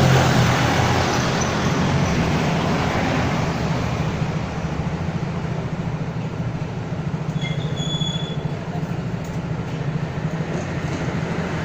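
A cat purring close to the microphone while being stroked: a steady, loud, rapidly pulsing low rumble.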